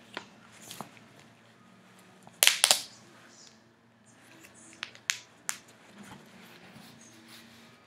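Handling and unwrapping of a snapback cap: plastic wrap crinkling, with a quick cluster of sharp clicks about two and a half seconds in and three more single clicks around five seconds.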